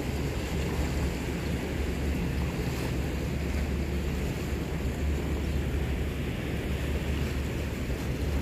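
Wind blowing on the microphone, with waves washing against shoreline rocks.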